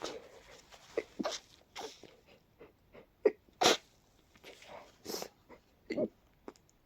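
A congested person's sneezy hiccups: a string of short, sudden hiccups and sneezes, the loudest about three and a half seconds in and another about five seconds in.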